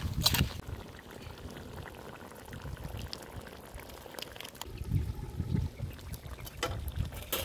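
Crabs and corn in coconut milk bubbling at a simmer in a large metal wok, with a few sharp clicks near the start and again near the end.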